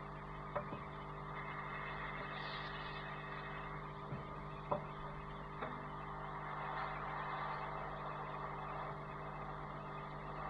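A plastic pry tool clicks faintly against a mobile phone's housing four times while prying it open, over a steady electrical hum and whir.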